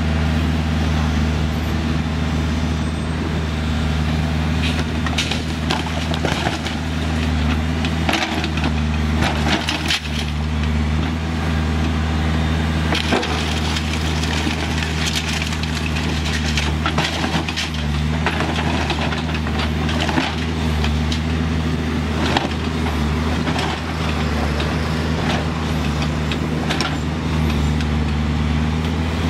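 New Holland B95B backhoe loader's diesel engine running steadily under load, with repeated knocks, clatter and crunching of concrete block and debris as its bucket breaks down walls.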